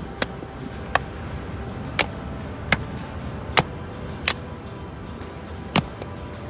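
Seven sharp clicks or knocks at uneven intervals, about one a second, over soft background music.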